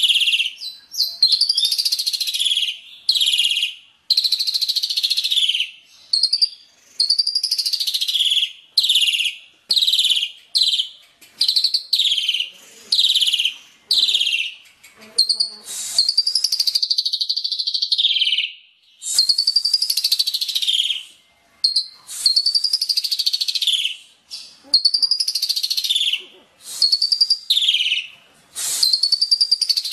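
A songbird singing harsh, rapid 'tembakan' song: bursts of high, sharp notes, many sweeping downward, one phrase every second or two with short pauses between. It is a masteran tutor song for training cage birds.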